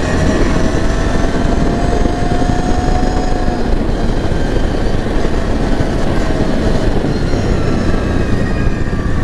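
CFMoto X8 ATV running under way, its engine note under a steady, loud rushing noise from the ride.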